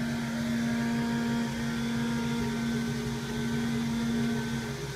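CNC milling machine cutting an aluminium block under spraying coolant: a steady machining hum with a held tone on top, the tone dropping out near the end.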